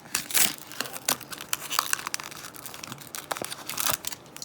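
Crinkling and rustling of a foil Magic: The Gathering booster pack wrapper being handled, with irregular crackles and small tearing sounds.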